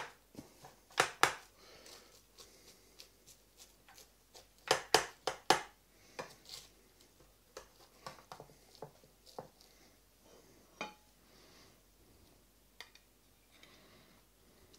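Metal knife and cake server cutting through a crisp baked puff-pastry crust and knocking and scraping against the ceramic pie dish, with a cluster of loud knocks about five seconds in. Fainter ticks follow, and one short ringing knock near the end as the slice is lifted onto a china plate.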